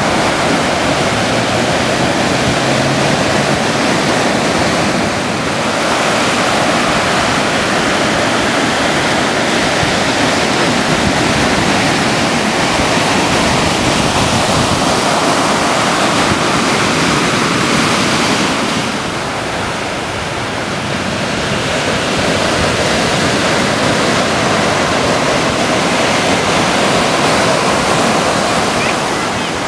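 Ocean surf: waves breaking and whitewater rushing, a loud steady rush of water that eases briefly about five seconds in and again around twenty seconds in.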